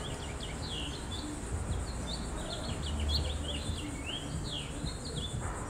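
Songbirds chirping: a steady run of quick chirps and short sliding notes, over a faint low rumble.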